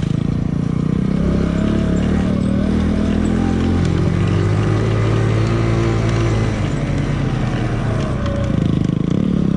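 Kawasaki Z125's small single-cylinder four-stroke engine running under varying throttle off-road, its pitch rising and falling as the rider works the throttle through rough ground.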